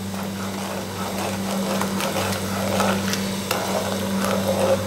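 A spatula stirring sugar through syrup in a ceramic-coated pan, with repeated gritty scraping strokes against the pan and a few light knocks, over a steady low hum.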